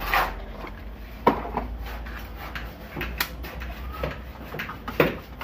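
Several sharp plastic clicks and knocks as a two-pole plug-in circuit breaker is worked and pressed into place on the panel board.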